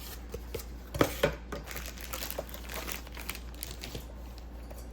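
Packaging being opened and handled, with crinkling and rustling and a couple of sharp knocks about a second in.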